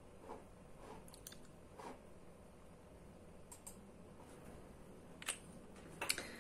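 Near silence in a small room, broken by a few faint clicks and handling noises, the clearest two near the end as a pen is picked up to write.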